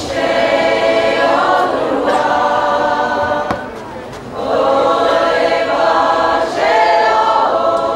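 Large mixed choir of men and women singing in long, held notes, in two phrases with a short break for breath about four seconds in.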